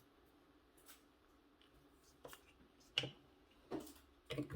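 Scattered light clicks and taps from hands handling small objects: a few faint ones, a sharper click about three seconds in, and a quick cluster near the end.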